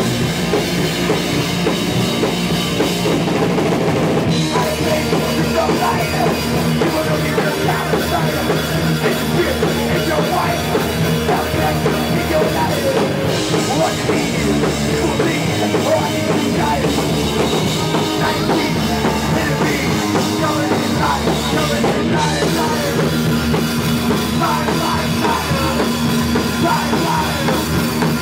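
Live heavy rock band playing loudly: electric guitar and a drum kit driving a continuous song.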